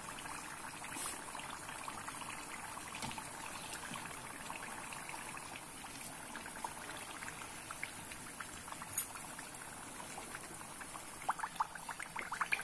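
Moong dal kachoris deep-frying in hot oil in a steel pot: a steady sizzle full of fine crackling, with a few louder pops near the end.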